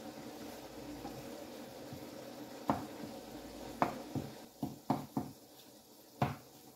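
Beaten eggs sizzling in a non-stick frying pan while a wooden spatula stirs and breaks them up, knocking sharply against the pan about seven times, mostly in the second half. The sizzling fades about halfway through.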